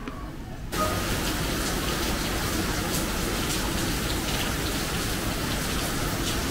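Steady rain, an even hiss dotted with the ticks of falling drops, coming in suddenly just under a second in.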